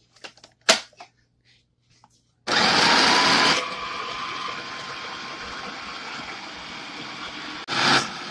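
A few clicks and knocks, then an electric food processor starts about two and a half seconds in, chopping pieces of brown bread into crumbs: loud at first as the blade hits the whole chunks, then settling to a steadier whir as the bread breaks down, with a brief louder surge near the end.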